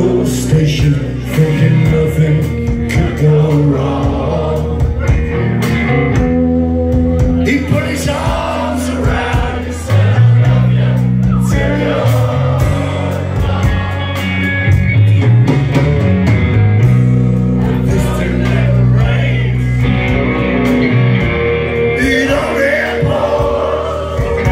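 Rock band playing live and loud: electric guitars, bass and drums.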